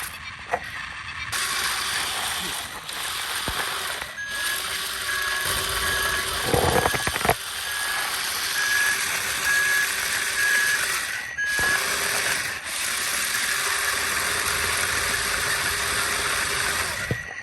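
Heavy construction machinery running with a continuous mechanical clatter. For several seconds in the middle a single-pitch beep repeats at an even pace, like a vehicle's reversing alarm.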